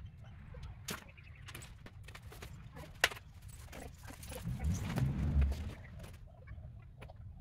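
Hands-on work noises at a battery pack's metal case: light metallic clicks, a sharp clack about three seconds in, then a low rumble for about a second past the middle.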